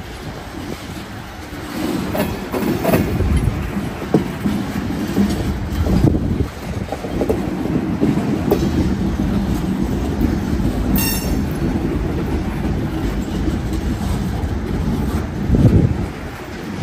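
Wheeling & Lake Erie freight train rolling past, its car wheels clattering over the rails, louder from about two seconds in. A short high screech comes about two-thirds of the way through.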